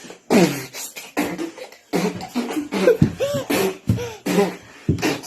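A voice making rhythmic beatbox-style mouth-percussion sounds, sharp clicks and puffs mixed with short pitched vocal noises, standing in for music.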